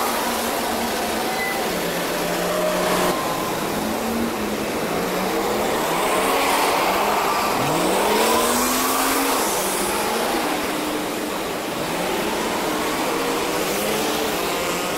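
Street traffic noise, with a city bus engine close by about halfway through, rising in pitch as it accelerates.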